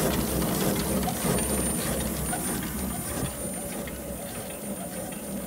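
1920 Stanley steam car's two-cylinder engine running on compressed air, a steady low rumble with a busy mechanical clatter from its rods and gears driving the rear axle. It gets quieter after about three seconds.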